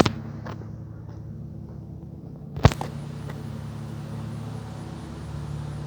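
A steady low mechanical hum, with two sharp clicks: one right at the start and a louder one about two and a half seconds in.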